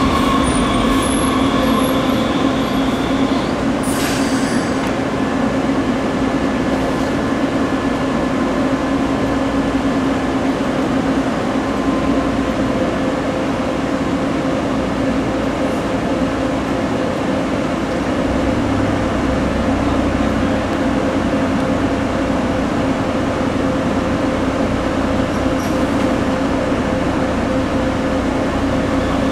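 Muni Metro light-rail train running steadily with a constant electric hum and whine over its rumble, and a brief sharp noise about four seconds in.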